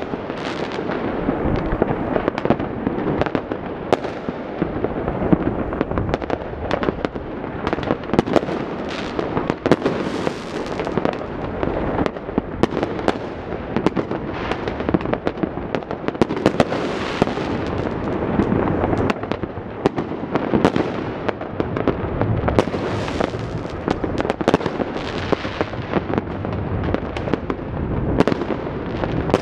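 Many fireworks going off at once across a city: a steady mass of overlapping bangs, pops and crackles, some near and sharp, most distant.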